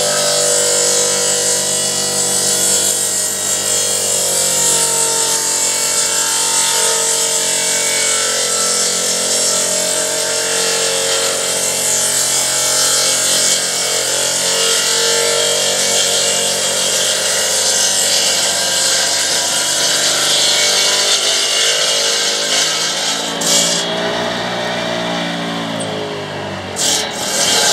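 Solar-powered electric saw on a homemade sawmill cutting lengthwise through a log. The motor's pitch wavers under load beneath a dense cutting hiss. About four-fifths of the way through the cutting hiss thins out, and two sharp knocks follow near the end.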